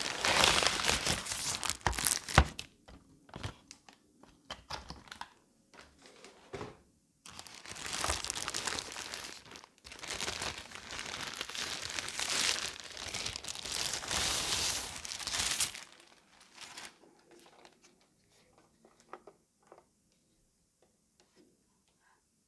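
Plastic packaging crinkling and rustling as a projector is worked out of an inflatable air-column cushion bag and a thin plastic bag. There are two long stretches of loud crinkling, at the start and from about 7 to 16 seconds in, with scattered handling clicks between them and a few faint taps near the end.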